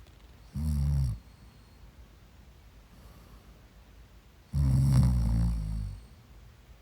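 Snoring in two breaths: a short low-pitched snore about half a second in, then a longer, louder one starting about four and a half seconds in.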